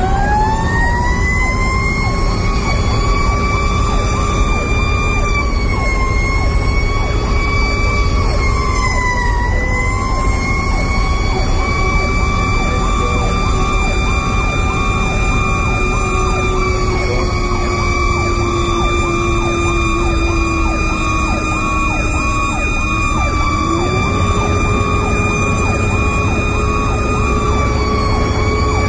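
Fire engine siren sounding continuously from inside the cab, held at a near-steady pitch with a few slight dips, over the rumble of the truck on the road.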